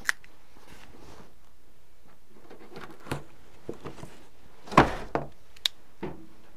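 A folding knife slitting the packing tape on a long cardboard shipping box, with cardboard scrapes and several sharp knocks as the box is handled. The loudest knock comes a little under five seconds in.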